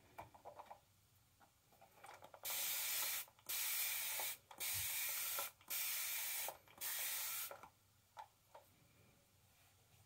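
Five short hissing sprays in a row, each under a second long with brief pauses between them, and a few faint clicks around them.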